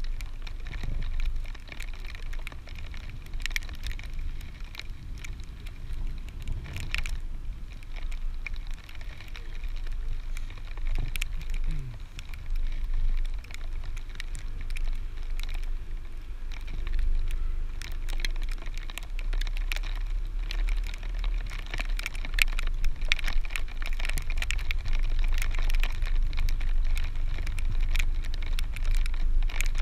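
Wind buffeting an action camera's microphone on a moving chairlift: a steady low rumble with scattered crackles and clicks, growing louder toward the end.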